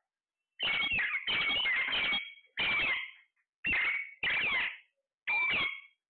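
Caged parakeets giving a series of about six loud calls, roughly one a second, starting just under a second in.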